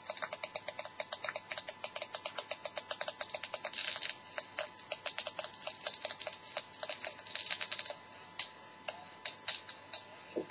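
Small speaker of a homemade transistor preamp-and-amplifier circuit putting out rapid, even clicking, about ten clicks a second, over a faint steady tone: interference picked up by the circuit acting as a crude radio receiver. After about eight seconds the clicks thin out to a few scattered ones.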